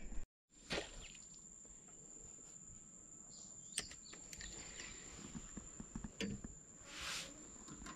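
Faint, steady high-pitched insect drone, with scattered light clicks and knocks from handling a fishing rod and reel.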